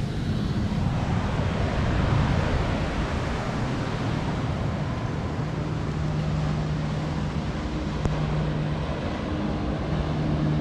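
Boat engine running with a steady low hum over wind and water noise; the hum grows stronger about halfway through.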